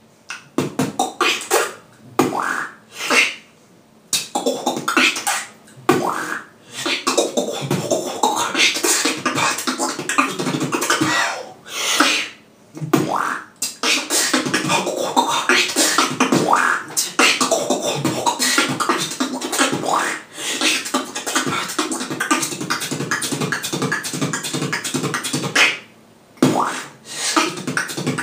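Solo human beatboxing: fast mouth-made drum patterns of kicks, snares and hi-hats mixed with sliding vocal tones that rise and fall. The routine breaks off briefly three times, about four seconds in, near the middle and near the end.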